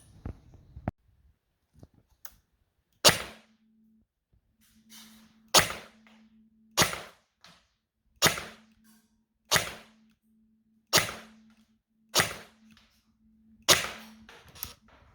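Airsoft electric gun firing single semi-auto shots, about nine sharp cracks spaced roughly a second and a bit apart, starting about three seconds in. A faint steady hum sits between the shots.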